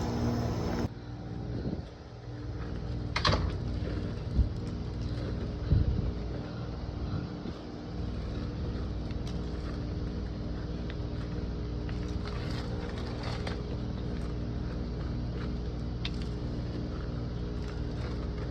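Steady hum of an idling engine, with a few sharp knocks in the first six seconds.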